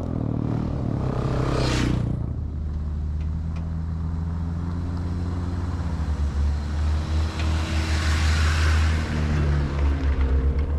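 A dirt bike passes close by, its engine pitch dropping as it goes, about two seconds in. Then a Jeep Wrangler's engine rumbles low at crawling speed as it rolls up the trail, with tyres crunching over gravel as it passes overhead around eight seconds in.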